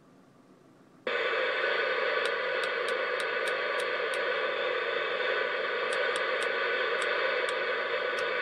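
Cobra 19 Ultra III CB radio's speaker hissing with static. The hiss cuts in suddenly about a second in and then holds steady, with a few faint ticks now and then.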